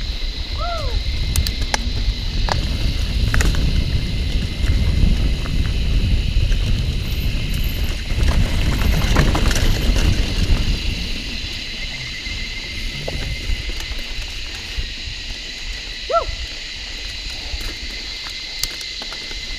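Mountain bike rolling down a dry dirt singletrack: tyre rumble, wind on the microphone and sharp clicks and rattles from the bike, heavier in the first half and easing after about eleven seconds. A steady high buzz sits underneath, and two short falling whistled notes come near the start and near the end.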